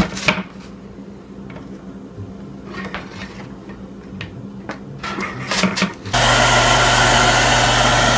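A few light clinks and clicks over a quiet background. About six seconds in, a handheld hair dryer starts suddenly and runs with a loud, steady blowing and a low hum.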